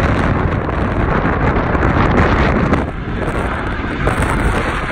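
McDonnell Douglas MD-88's two rear-mounted Pratt & Whitney JT8D turbofans at takeoff power during the takeoff roll: a loud, steady rush of jet noise, mixed with wind buffeting the microphone.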